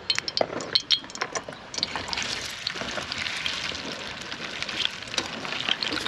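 Hotdogs sizzling in hot oil in a frying pan, with clinks of a metal spatula against the pan. The sizzle sets in about two seconds in and then runs steadily.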